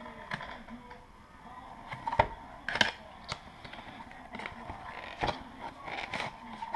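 Cardboard watch box being handled and opened by hand: the card flap scraping and rustling, with irregular taps and snaps, the sharpest a little over two seconds in.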